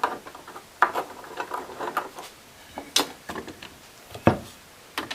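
Woodworking clamps being handled and set up on a wooden glue-up: a run of small clicks and rattles with several sharper knocks of the clamp heads and blocks against the wood.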